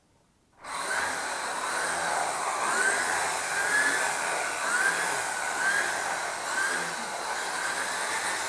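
Corded electric drill switched on about half a second in and boring into the wall, running steadily with a whine that wavers about once a second.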